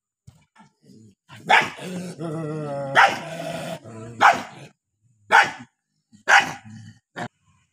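Angry dog barking about six times in sharp bursts, with a low, drawn-out growl between the first few barks.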